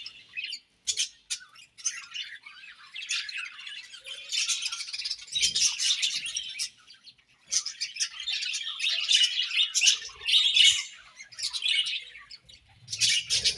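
A colony of budgerigars chirping and chattering, many high, quick calls overlapping in bursts, with a short lull about seven seconds in.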